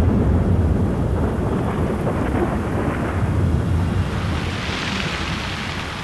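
A thunderstorm: a low rolling rumble of thunder over steady rain. The rumble eases and the rain's hiss swells brighter about five seconds in.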